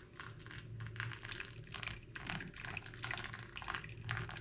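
Hot water pouring from a kettle onto coffee grounds in a V60 dripper: a splashing trickle that keeps wavering in strength. It is the next pour after the bloom.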